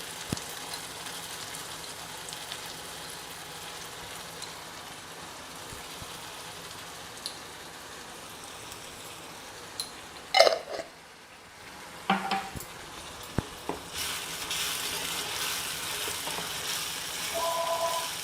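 Chopped onions and tomatoes frying in sesame oil in a kadai, sizzling steadily while being stirred. A ladle knocks and clinks against the pan a few times in the second half, and the sizzling gets louder over the last few seconds.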